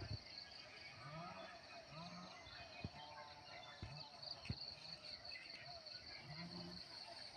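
Crickets chirping in a steady, fast-pulsing high trill. A lower sound that rises and falls repeats about once a second, and three short sharp taps fall near the middle.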